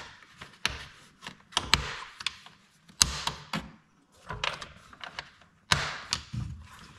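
Irregular sharp clicks, taps and knocks with some rustling as a car's air filter housing is refitted by hand in the engine bay.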